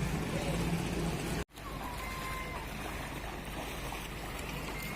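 Steady rush of flowing floodwater, with a low motor hum in the first second and a half. The sound drops out abruptly, then the water noise resumes.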